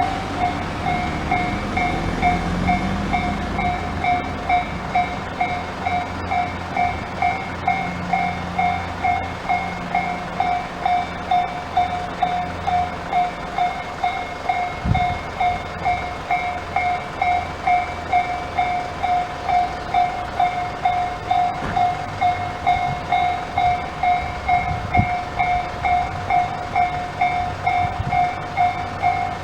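Tobu Tojo Line level-crossing warning bell, the line's own electronic 'Tojo type' alarm, ringing a steady pulsed tone a little under twice a second. A train rumbles past under it and fades away by about halfway through.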